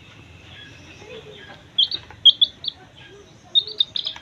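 A six-day-old chick peeping: short, high chirps in quick runs, a few about two seconds in and a longer run near the end.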